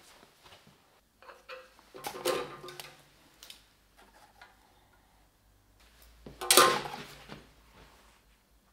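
Small metal pieces clattering against a sheet-steel lathe chip tray as they are handled and set down, in two bouts, about two seconds in and a louder one about six and a half seconds in.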